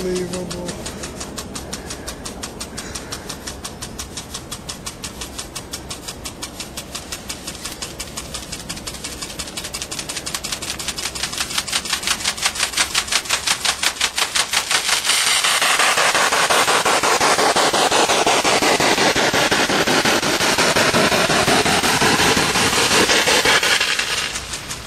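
Lawn sprinkler ticking steadily, about four times a second; about fifteen seconds in its spray sweeps onto the tent and pelts the fabric with a loud hiss for about nine seconds, then moves off near the end.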